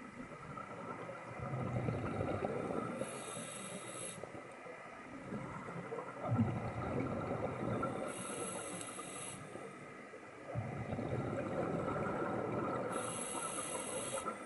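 Scuba diver breathing through a regulator underwater: three breath cycles about five seconds apart, each a rush of exhaled bubbles and a short high hiss from the regulator.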